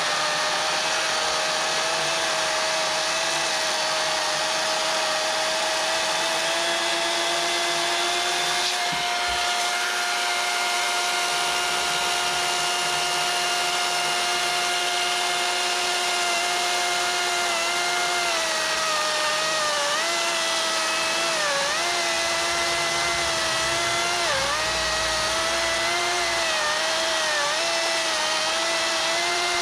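Craftsman V60 brushless cordless chainsaw cutting through a pine log: a steady electric motor and chain whine. Past halfway, its pitch dips and wavers again and again as the chain takes load in the cut.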